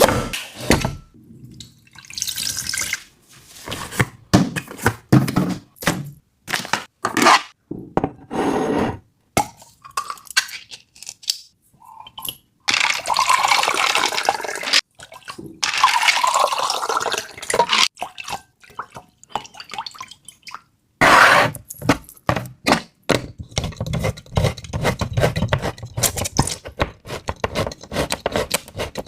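Liquid being poured and dripping, with two longer pours of about two seconds each near the middle, between short knocks and clinks of handling. In the last third comes a quick, dense run of small clicks and taps.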